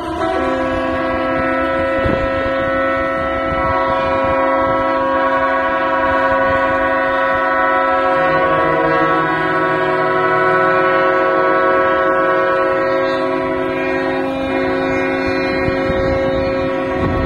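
Several ships' horns sounding at once in long, overlapping blasts at different pitches. A further horn joins about half a second in, and a lower one comes in around eight seconds in.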